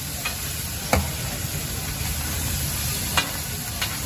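Fish katakat frying on a flat tawa griddle with a steady sizzle, while a steel ladle stirs and strikes the griddle: four sharp metal clinks, the loudest about a second in.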